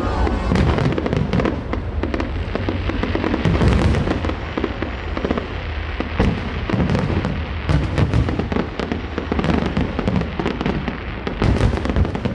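Aerial fireworks going off in quick succession: a dense run of crackles and bangs over a deep rumbling boom.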